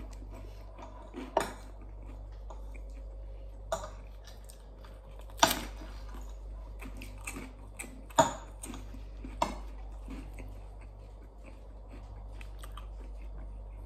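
A person chewing and biting food close to the microphone, with wet mouth sounds and a few sharp clicks and knocks, the loudest about five and eight seconds in. A steady low hum runs underneath.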